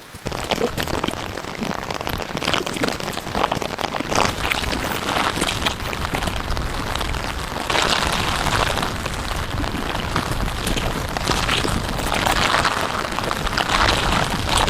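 Heavy rain falling steadily, a dense patter of drops that swells louder about eight seconds in and again near the end.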